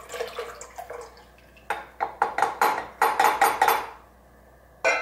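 Melted butter and milk poured from a glass measuring cup into a stainless steel mixing bowl, then a quick run of clinks and clatters of glass on metal about halfway through. A louder clatter comes right at the end.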